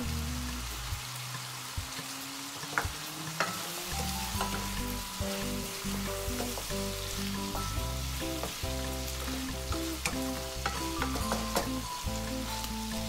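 Chicken and diced vegetables sizzling in a nonstick frying pan while a wooden spoon stirs them, with scattered knocks and scrapes of the spoon against the pan. Background music plays over it.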